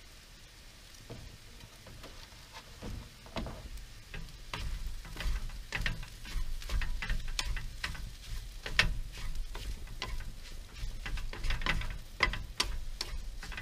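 Wooden spatula stirring and scraping food in a frying pan on a camp stove, with light sizzling. The scrapes start sparse and grow quicker and busier about four seconds in.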